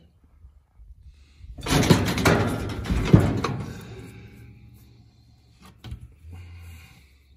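A metal livestock chute rattling and banging in a burst of clattering knocks for about two seconds as the steer shifts against its panels, fading out after that, with a single sharp knock near the end.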